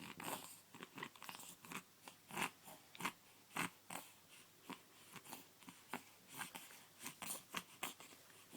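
A baby's small mouth noises: irregular soft clicks and smacks, a few a second.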